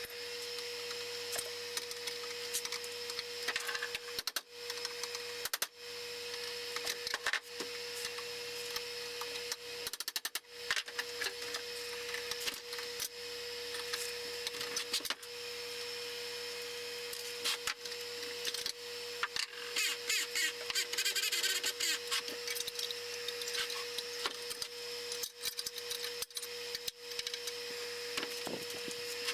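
Irregular clicks, taps and short clatters of hand tools and metal parts being handled while a small band saw is taken apart, over a steady background hum.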